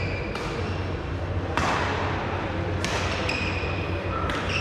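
Badminton rally: rackets striking the shuttlecock about once every second and a quarter, the loudest hit about a second and a half in, with short squeaks of shoes on the court floor between hits. The hits echo in a large sports hall.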